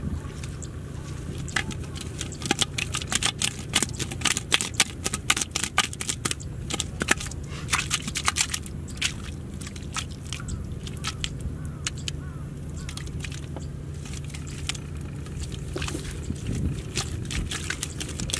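Hands digging and scooping wet mud out of a hole in the ground, with rapid wet crackling, clicking and scraping. The crackling is thickest in the first half and thins out later.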